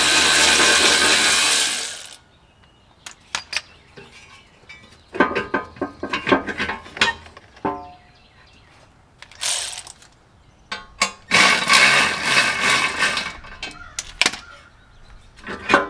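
A cordless power tool with a socket extension runs for about two seconds, spinning out the last 15 mm bolt holding a steel skid plate. This is followed by scattered knocks and clinks of metal as the plate is worked loose, then another noisy run of about three seconds.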